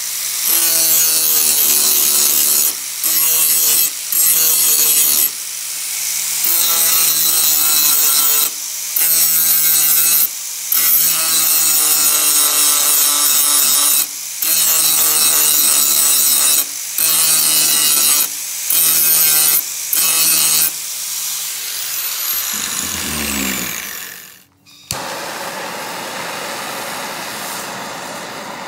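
Angle grinder sharpening an edge on a steel sawblade, repeatedly pressed onto the steel and eased off, then switched off and winding down with falling pitch a little over 20 seconds in. After a moment's quiet, a blowtorch flame hisses steadily, singeing the wooden handle.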